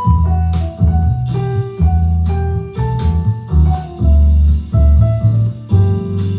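Instrumental background music: ringing mallet-like notes over a heavy bass line and a steady beat.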